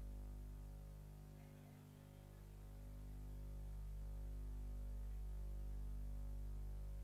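Faint, steady background music of sustained low chords, dipping briefly about two seconds in and then swelling back.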